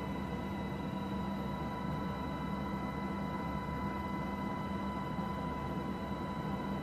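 Steady engine drone of an aircraft, with a constant low hum and a thin high whine that do not change.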